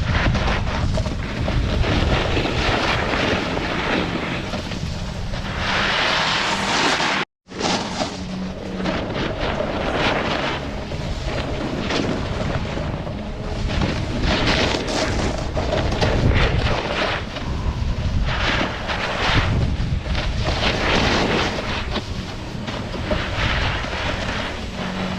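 Snowboard sliding and carving on snow, with the board's scrape swelling on each turn and air rushing over the GoPro's microphone. The sound cuts out completely for a moment about seven seconds in.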